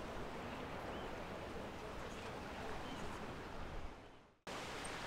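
Steady outdoor riverside background noise, an even hiss. It fades out about four seconds in, then starts again abruptly at a similar level.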